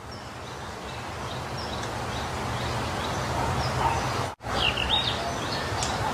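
Outdoor background noise with a steady low hum and small birds chirping now and then. The sound drops out abruptly for an instant about four seconds in, then resumes with louder, quicker chirps.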